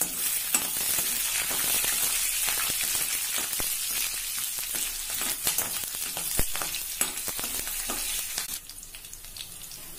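Dried red chillies, green chillies, ginger, peanuts and dals frying in hot sesame oil for a tempering: a steady sizzle with scattered pops and crackles. It dies down somewhat about eight and a half seconds in.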